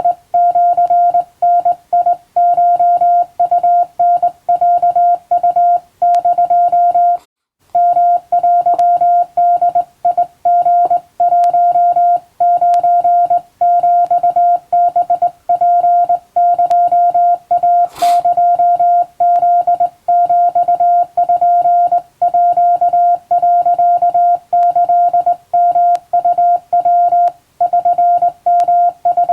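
Hand-keyed Japanese (wabun) Morse code: a steady mid-pitched tone switched on and off in short and long elements at an uneven, hand-sent rhythm. There is a brief pause about a quarter of the way through and a single sharp click past the middle.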